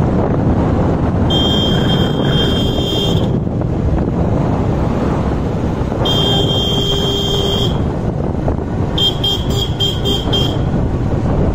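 Motorcycle horn sounding while riding: one steady blast of about two seconds a little over a second in, a second blast of about a second and a half near the middle, then a quick run of about six short toots near the end. Under it, steady wind buffeting on the microphone and the rumble of the moving motorcycle.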